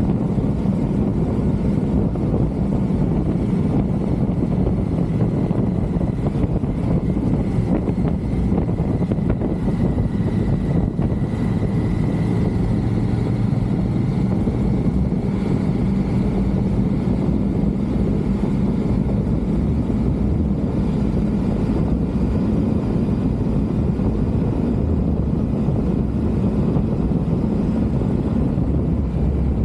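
Triumph Tiger motorcycle riding at a steady pace: a steady engine hum whose pitch shifts a little about midway, with wind noise on the microphone.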